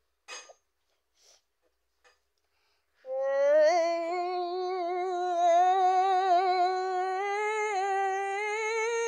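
A person humming one long held note that starts about three seconds in. It wavers slightly and slowly creeps up in pitch.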